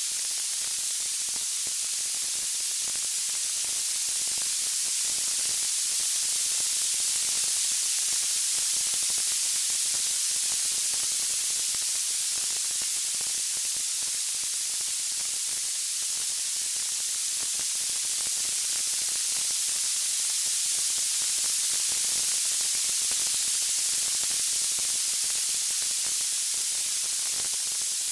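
Steady, bright white-noise hiss, even in level, with no audible crackles or pops.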